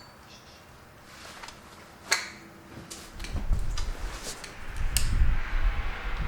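Handling noise: a quiet start, then a sharp click about two seconds in, followed by scattered clicks and knocks over low rumbling rustle.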